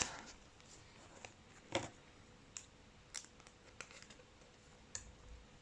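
Faint handling of trading cards and plastic card sleeves: about six short, soft clicks and rustles spread over a few seconds, the loudest a little under two seconds in.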